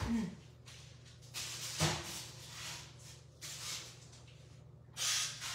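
A foil-lined baking sheet being put into the oven: a knock about two seconds in and a few short scraping rustles as the pan and oven door are handled, over a steady low hum.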